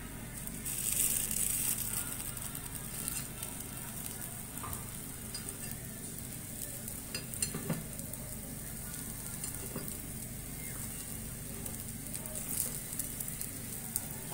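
Paniyaram batter sizzling in hot oil in the hollows of a paniyaram pan as the half-cooked balls are turned over. A metal spoon clicks against the pan a few times. The sizzle swells about a second in.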